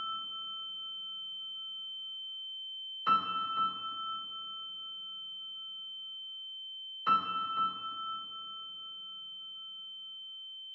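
Slow piano music: a chord struck twice, about four seconds apart, each left to fade, over a steady high-pitched ringing tone.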